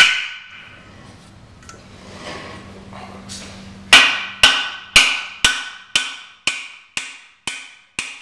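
Hammer blows driving guide pins into a Griswold pump's cast-iron power frame, each strike ringing metallically. One blow at the start, then after a pause of about four seconds a steady run of blows, about two a second.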